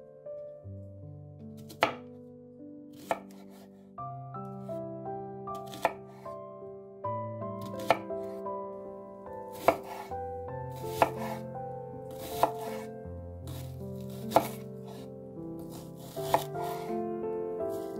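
Kitchen knife chopping an onion on a bamboo cutting board: single sharp chops every second or two. Background music with held chords plays underneath.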